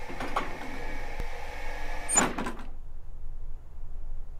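Cartoon sound effects of a boxy toaster robot machine at work: a steady mechanical whirr with a louder clunk a little past two seconds in, after which the whirr cuts off and only a low hum remains.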